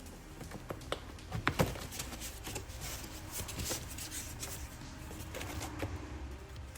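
Handling of packaging and parts while unboxing light pods: rustling with a few sharp clicks and knocks, the loudest about one and a half seconds in.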